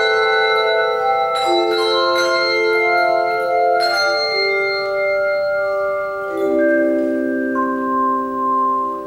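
English handbells played by a bell choir: chords of several bells struck together a few times, each left to ring on in long, steady tones. The last strikes come about two-thirds of the way through, and the chord then rings on and slowly fades.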